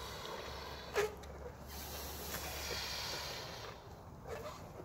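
Breath blown into rubber party balloons to inflate them by mouth: a long hissing exhale through the middle, with a short sharp sound about a second in.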